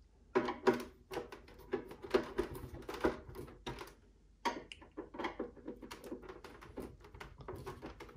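Hand screwdriver driving machine screws through a monitor arm's metal VESA plate into the back of a monitor: a run of irregular light clicks and scrapes as the tip seats in the screw heads and the screws turn, with a short pause about four seconds in.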